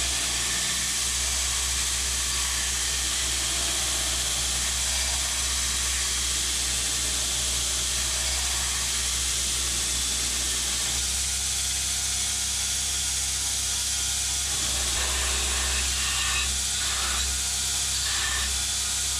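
KMG belt grinder running with a forged 52100 high-carbon steel blade held against the belt: a steady grinding hiss over the motor's low hum, as the outline of the blade is ground to profile.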